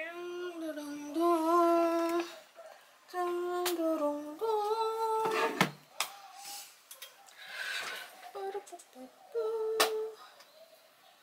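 A woman humming a few short held notes, each a steady tone with small wavers, with pauses between them. A few sharp taps fall between the notes.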